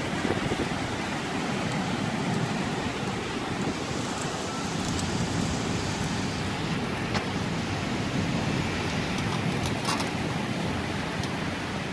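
Steady noise of a thunderstorm's wind and rain, with a few faint ticks.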